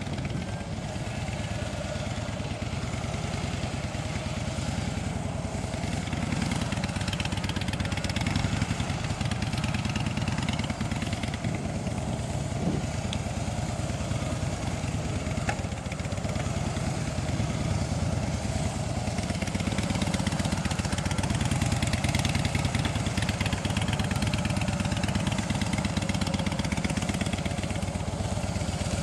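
2006 Harley-Davidson Softail Deuce's air-cooled V-twin engine running steadily at low speed, little above idle, as the bike is ridden slowly through tight cone weaves.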